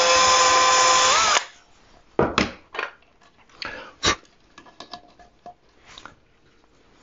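Power drill driving a 1/16-inch bit to pre-drill a pilot hole in wood: a steady motor whine for about a second and a half that rises briefly in pitch just before it stops. Then scattered light clicks and knocks as the small metal load cell is handled and set in place.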